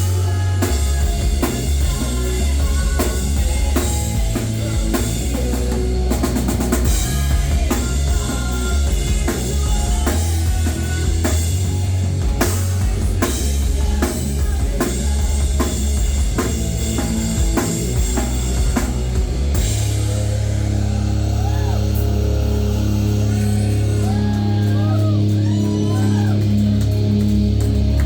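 Rock band playing live, with the drum kit pounding hard. About twenty seconds in the drums stop and low, sustained notes ring on.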